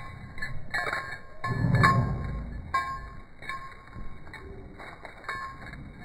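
Metal dog tags and collar ring jingling in short clinks, several times, as the dog walks. About a second and a half in, a louder low rumble lasts about a second.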